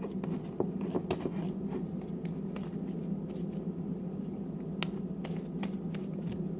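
Scattered light clicks and sticky pops from hands working homemade slime, over a low steady hum.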